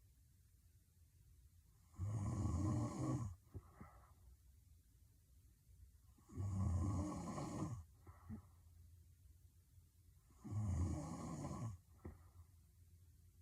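A woman snoring heavily in her sleep: three loud snores about four seconds apart, each lasting a little over a second, with quiet stretches between them.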